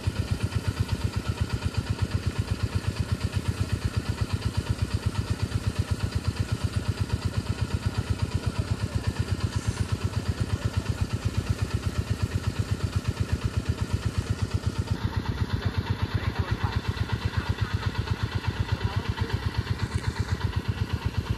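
An engine running steadily at idle, with an even beat of about five pulses a second.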